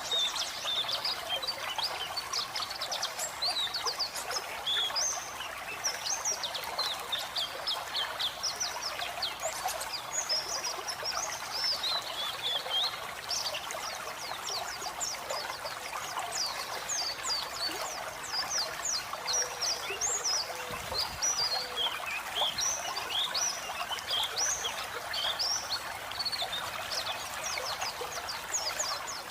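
White-eye (pleci) singing a fast, high twittering of short chirps without pause, over a steady trickle of running water.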